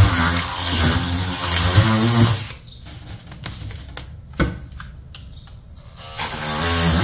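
DeWalt oscillating multi-tool running as its blade cuts into pink foam board, a loud buzz for about two seconds. It then stops, leaving a quieter stretch of faint clicks with one sharp click in the middle. The tool starts up again near the end.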